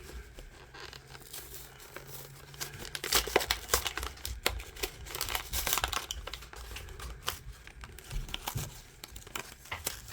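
Packaging being crinkled and torn open by hand: a run of irregular crackles and rustles, busiest in the middle and thinning toward the end.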